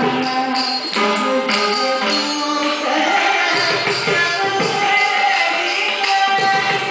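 Live Carnatic music accompanying a Bharatanatyam dance: a woman singing with violin, over rhythmic jingling percussion strikes.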